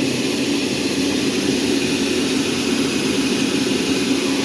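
Sawmill machinery running steadily: a loud, continuous mechanical drone with a low hum and a hiss, holding level throughout.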